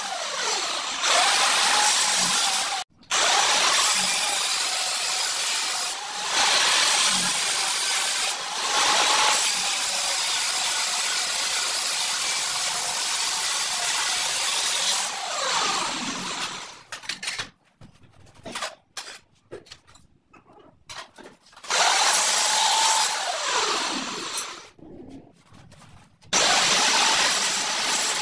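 Angle grinder with a diamond blade cutting ceramic tile: a loud, harsh grinding hiss. It stops a few times, the motor winding down in pitch, with a long lull after about two thirds of the way, then runs again near the end.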